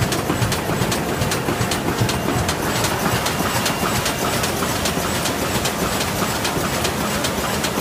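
DLG FMQF 1480 high-speed automatic flute laminator running at about 9,400 sheets an hour: a steady mechanical din with a regular clicking of about three a second.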